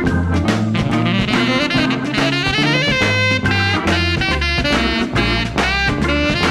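Swing-style jazz music with a horn lead over a steady bass line and drums.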